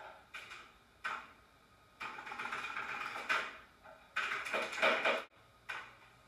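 Computer keyboard and mouse clatter: scattered single taps and clicks, with two denser runs of about a second each in the middle.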